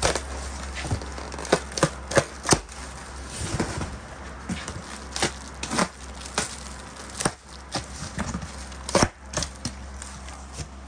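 Plastic stretch wrap and cardboard flaps of a shipping carton being cut, torn and pulled open by hand: irregular sharp crackles and snaps, over a steady low hum.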